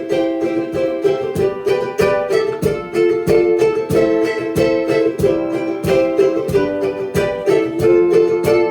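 Instrumental song opening played live on a strummed string instrument, a steady strumming rhythm of about three strokes a second.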